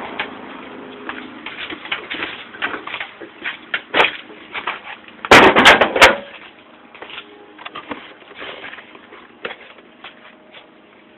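Clicks, knocks and rustling of objects being handled and rummaged through, with a loud burst of clattering knocks a little past five seconds in.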